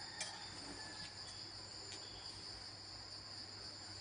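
Steady high-pitched insect chorus, faint, with a couple of light ticks.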